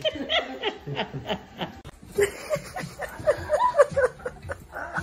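A person laughing in quick, repeated snickers and chuckles. The laughter changes in character about two seconds in.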